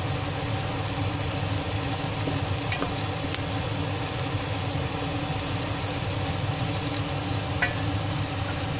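Rice frying in a nonstick pot as a wooden spoon stirs it: the grains rustle and scrape with a light sizzle over a steady hum, with a couple of faint taps of the spoon.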